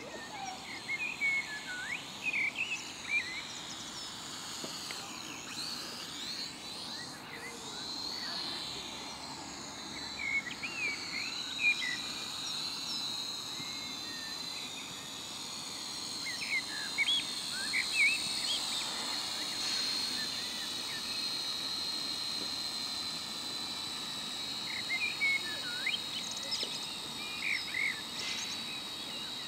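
High-pitched steady whine of a Syma X5C quadcopter's small motors in flight, swelling and fading as it manoeuvres overhead. Birds chirp in short bursts throughout.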